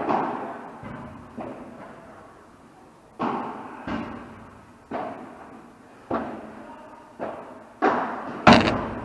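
A padel rally: a string of sharp ball hits about every half second to a second, from rackets striking the ball and the ball striking the court, each ringing on in the hall. The loudest hit comes near the end.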